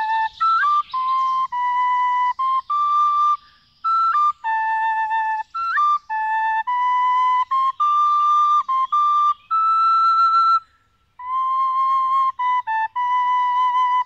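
A flute or similar wind instrument playing a slow melody of clear held notes, with small sliding ornaments and short pauses about four seconds in and again near eleven seconds.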